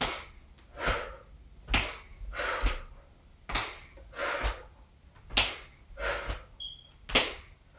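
A woman breathing hard in and out in time with side-to-side arm swings, about one loud breath a second, alternating inhale and exhale.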